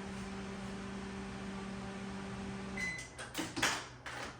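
Dacor microwave oven running with a steady hum, heating normally. About three seconds in the hum stops and sags in pitch, a short beep sounds, and then come a few clicks and knocks.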